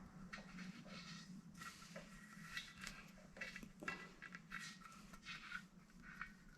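Faint, irregular scraping and light clicks of small threaded brass and steel pipe fittings being handled and screwed together, over a steady low hum.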